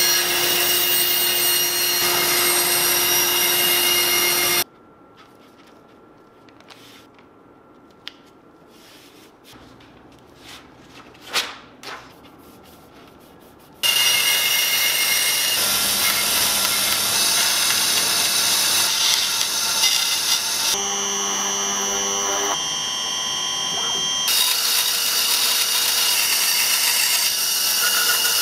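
Electric saw with a narrow blade cutting wood: it runs steadily, stops about five seconds in, leaving a quiet stretch with a few light knocks, then starts again and runs on through the cut.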